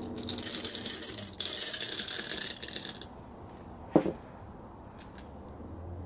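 Small glass gems poured into a hollow glass candlestick, clinking and rattling against the glass for about three seconds with a brief break partway. A single knock follows about a second later, then a couple of light clicks.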